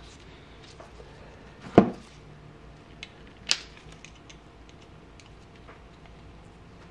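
Scattered handling noises as gloved hands work a small metal brake master cylinder piston and its rubber boot: a few light clicks, a knock about two seconds in and a sharp click a second and a half later.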